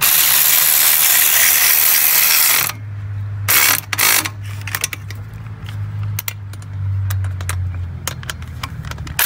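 Cordless power ratchet spinning on an exhaust manifold bolt: a loud run of nearly three seconds, then a quieter stretch with scattered clicks and two short bursts about four seconds in, over a low steady hum.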